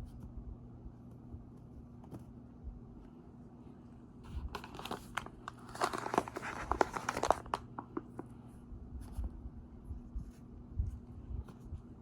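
Pink-dyed cornstarch being squeezed and crumbled, a few seconds of soft crunchy, squeaky crackling with many small clicks, over a low steady hum.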